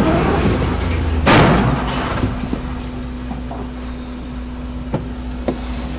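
Aftermath of a train striking a truck at a level crossing: a brief loud crash about a second in, then a steady low vehicle rumble with a faint steady hum and a few scattered sharp clicks.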